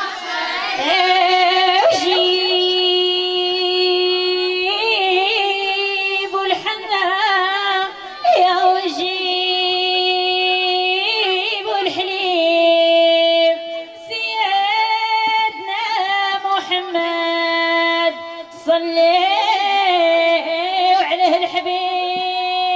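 A woman singing a Jebli 'aadiya wedding chant in long held notes with wavering ornaments, pausing briefly for breath between phrases.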